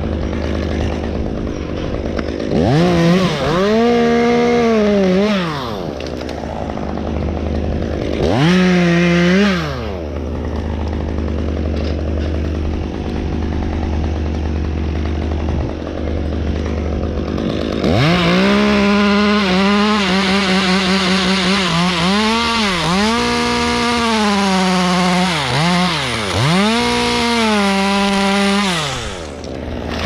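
Chainsaw idling, revved up briefly twice, then held at high revs for about ten seconds, its pitch dipping and recovering again and again as it cuts into black walnut.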